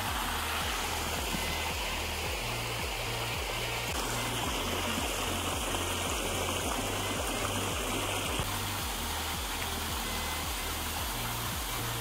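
Water running over rocks in a shallow creek and small waterfall, a steady rushing, with a repeating bass line of background music underneath.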